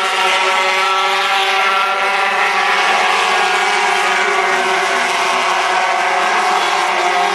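Racing motorcycle engines running at high revs, a steady drone of several tones.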